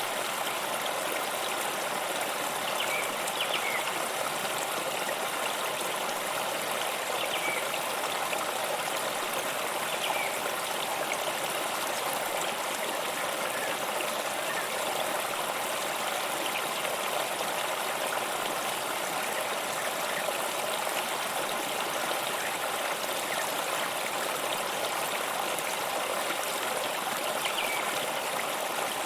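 Waterfall: steady rushing water, an even, unbroken splashing hiss that keeps the same level throughout.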